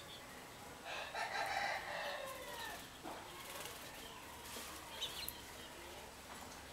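A rooster crowing once, a drawn-out call starting about a second in and falling at the end, with small birds chirping briefly afterwards.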